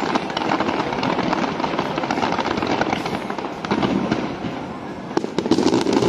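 Fireworks exploding in rapid succession, a dense run of bangs and crackling. The barrage eases briefly about two-thirds of the way through, then a fresh volley of sharp cracks comes in near the end.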